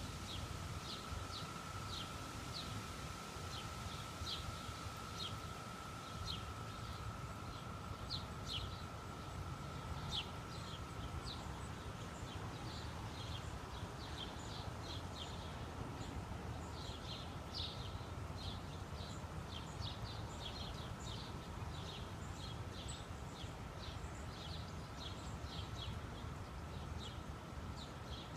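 Birds chirping in short, repeated, irregular calls, over a low rumble of wind on the microphone. A faint steady high tone runs underneath.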